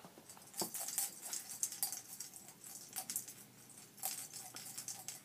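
Irregular rattling and jingling of small hard objects shaken or handled, in clusters of quick clicks with short pauses between.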